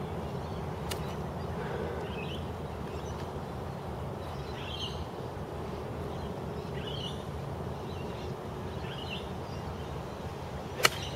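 A golf club strikes the ball on a tee shot with a single sharp crack near the end. Before it there is a long quiet wait over steady outdoor background noise, with faint bird chirps every second or two.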